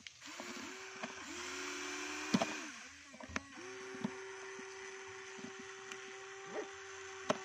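Electric motors of a Huina remote-control toy excavator whining as the boom and arm move, spinning up and down in short runs, then running steadily for about four seconds from halfway. A few sharp knocks come in the first half.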